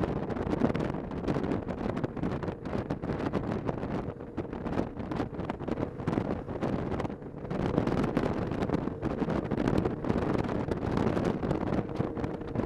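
Wind buffeting the microphone of a camera on a moving motorcycle, gusting unevenly, with the motorcycle's engine running underneath.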